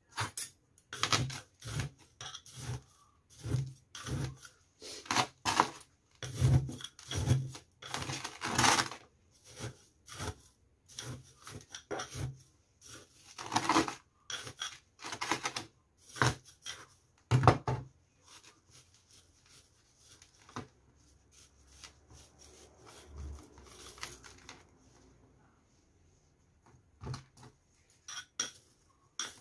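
Small pebbles of the gravel topping in a succulent pot clicking and crunching as a gloved hand presses and shifts them around the plant. The irregular clicks come thick and fast for most of the stretch, then give way to a softer scraping, with a few clicks again near the end.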